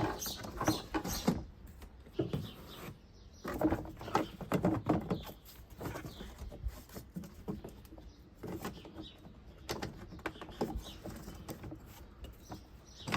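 Plastic air filter box being worked loose and lifted out of a car's engine bay: plastic scraping, knocking and rattling in three short spells, with quieter gaps between them.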